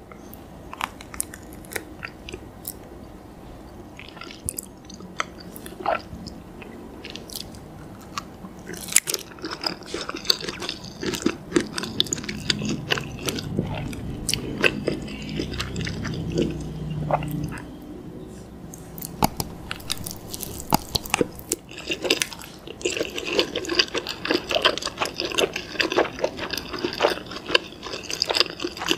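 Close-miked biting and wet chewing of rice-paper-wrapped instant noodles in chili sauce, with scattered sharp clicks. The chewing grows dense and crackly over the last several seconds.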